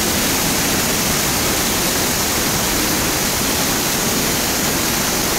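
Creek swollen with high water pouring down a waterfall and churning through a rocky pool: a loud, steady rush of water.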